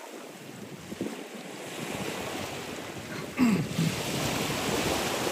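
Surf washing onto a sandy beach, with wind on the microphone growing stronger after about two seconds. A short pitched sound that falls in pitch breaks in about three and a half seconds in and is the loudest moment.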